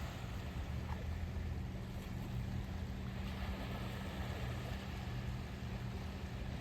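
Sea waves washing steadily on the shore, with a constant low rumble underneath.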